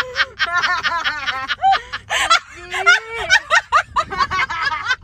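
A young woman laughing hard in quick, high-pitched bursts, several a second.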